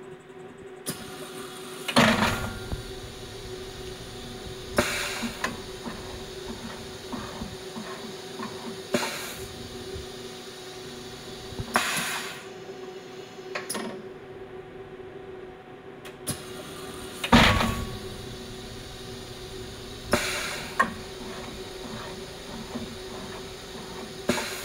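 Cincinnati Milacron Arrow 500 ERO machining centre's automatic tool changer cycling over the machine's steady hum: a string of loud clunks and hissing air blasts every three to five seconds. The loudest bangs are about two seconds in and again about seventeen seconds in. The carousel comes in far too fast, which the owner puts down to something not being quite right mechanically.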